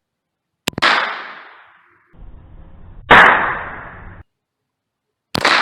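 Three shots from an AR-15 pistol firing .22 rounds through a .22 conversion kit, about two and a half seconds apart, each a sharp crack followed by a ringing echo that fades over about a second.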